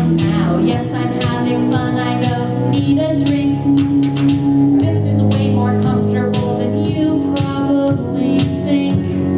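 Live song performance: a woman singing into a microphone over string accompaniment and a steady beat.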